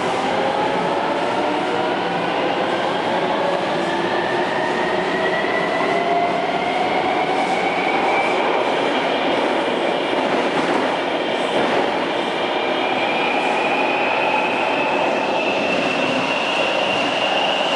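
Taipei Metro C321 train's traction inverter whining as the train accelerates, with several tones rising steadily in pitch over the running noise of wheels on the rails.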